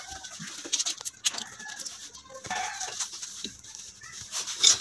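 A chrome angle valve being screwed by hand into a threaded wall fitting, giving light metal clicks and scrapes, with a few short high squeaks.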